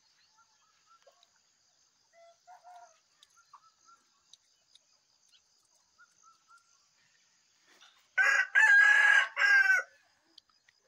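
A rooster crowing once, loud and about two seconds long, about eight seconds in. Before it, faint small-bird chirps over a steady high insect trill.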